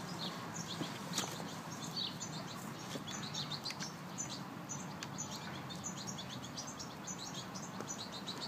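Small birds chirping steadily in the trees, many short, high notes in quick succession, over a low steady hum with a few sharp clicks.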